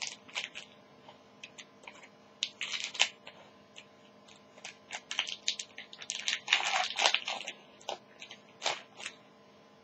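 Foil trading-card pack wrapper crinkling and crackling in irregular bursts as it is cut and pulled open, loudest about two-thirds of the way through.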